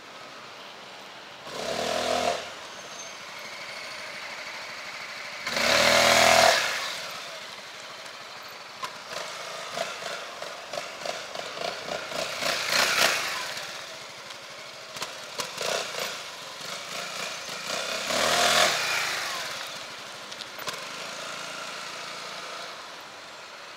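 Honda Forza 350 scooter's single-cylinder engine through its stock exhaust, opening up in four loud bursts as it rides around close by, with a lower, uneven running sound between them.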